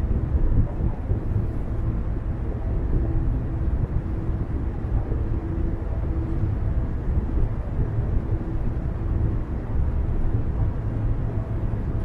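Car driving along a road: a steady low rumble of tyres and engine, with a faint hum that comes and goes.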